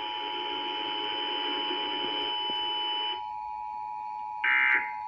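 Emergency Alert System two-tone attention signal, a steady dual tone of 853 Hz and 960 Hz, under a hiss of static that cuts off about three seconds in. Near the end a short burst of warbling SAME data tones (the alert's digital header or end-of-message code) sounds over it.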